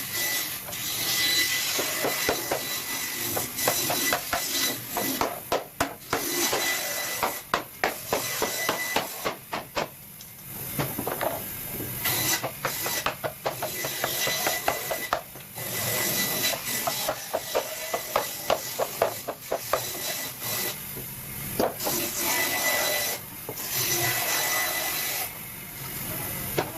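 Hand work on a wooden sofa frame: wood rubbing and scraping, broken by many quick sharp clicks and knocks.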